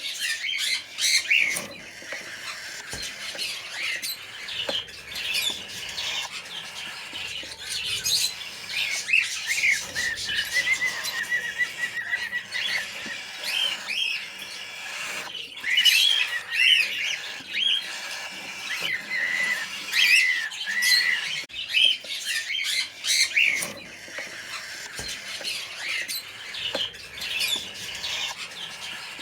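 Cockatiel chicks calling: a steady stream of short, high calls that glide up and down in pitch.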